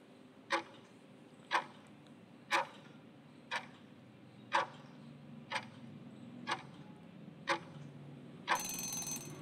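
Countdown timer sound effect ticking once a second, eight sharp ticks, then a short ringing buzz of about a second near the end as the count runs out.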